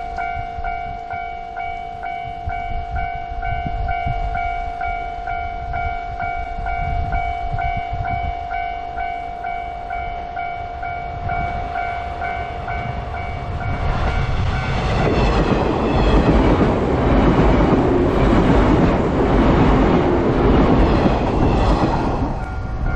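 Railway level-crossing warning alarm sounding with a steady, regularly pulsing tone. About fourteen seconds in a train reaches the crossing and passes over it, much louder than the alarm, its wheels clacking in a regular rhythm over the rail joints while the alarm keeps sounding.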